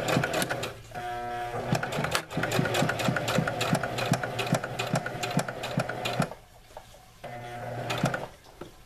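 Electric sewing machine stitching a seam through layered fabric, its motor humming under a rapid, even needle beat. It stops about six seconds in, then runs again briefly near the end.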